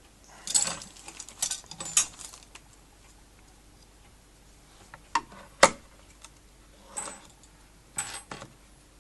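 Scattered clicks, taps and small rattles of vanity cabinet parts and metal fittings being handled during assembly, busiest in the first two seconds, with one sharp click about halfway through.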